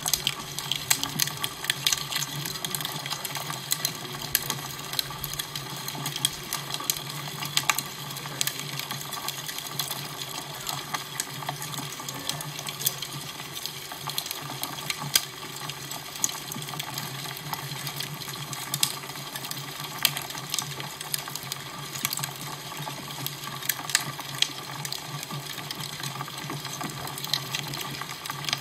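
Fire crackling: a steady hiss with frequent irregular sharp pops and snaps, over a low steady hum.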